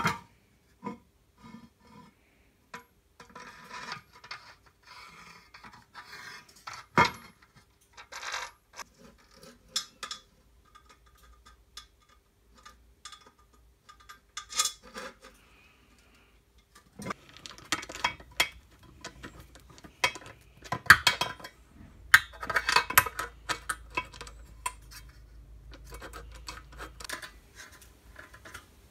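Small metal clinks, taps and scrapes from M5 steel screws and aluminium box-section parts being handled and fitted together. The sounds come and go, busiest in the second half.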